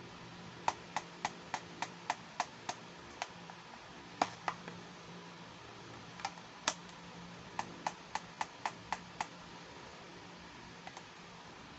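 Sharp little clicks and taps of small plastic toy pieces being handled. They come in quick runs of about three to four a second, with pauses and a few single clicks between.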